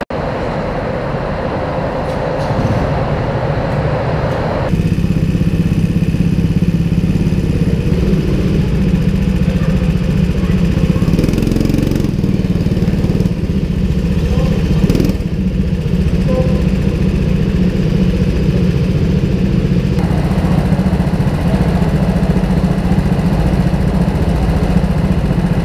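Go-kart engines idling on the starting grid, a steady low hum that sets in abruptly about five seconds in.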